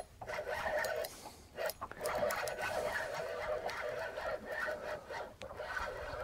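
Spinning reel being cranked to bring in a hooked fish: a steady whirring gear hum that stops briefly several times as the winding pauses, with a few light clicks.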